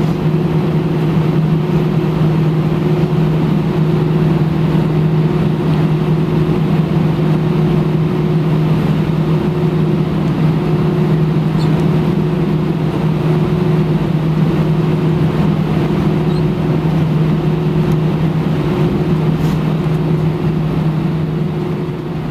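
Steady cabin hum of an Airbus A320 taxiing after landing, with a low drone held at one pitch and a fainter higher tone above it.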